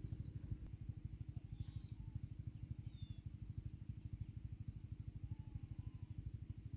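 An engine running steadily, heard as a low, rapid, even throb, with a few faint high bird chirps over it.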